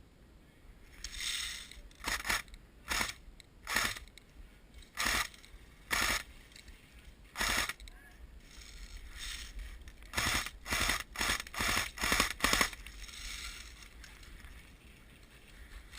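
Electric airsoft guns firing short bursts and single shots, each a quick rattle of rapid clicks. They come irregularly at first, then in a fast run of about six bursts a little past the middle.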